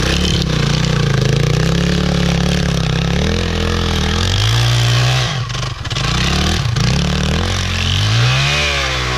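Dirt bike engine revving hard as the bike spins circles in snow, its pitch rising and falling with the throttle. It eases off briefly a few times around the middle, then revs up again near the end.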